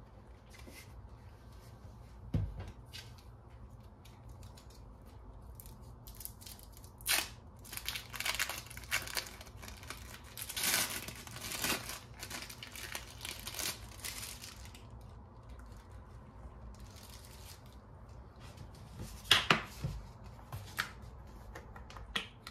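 Intermittent crinkling and tearing with scattered small clicks, busiest in the middle and again near the end.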